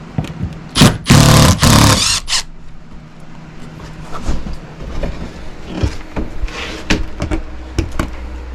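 A wall access panel being worked loose and taken off: a loud scraping rattle of about a second and a half, starting about a second in, then scattered knocks and clicks.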